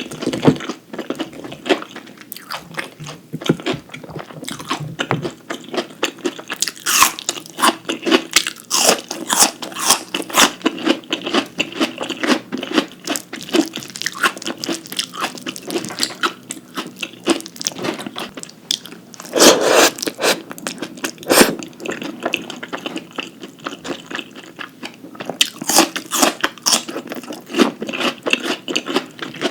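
Close-miked eating: a person biting and chewing crunchy food, with clusters of crisp crackling crunches between softer wet chewing; the loudest crunch comes about two-thirds of the way in.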